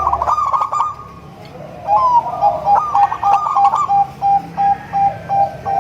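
Zebra doves (perkutut) cooing: a rippling, staccato coo phrase, a pause of about a second, then another phrase that runs into a string of short, even coos at about three a second, with a new phrase starting near the end.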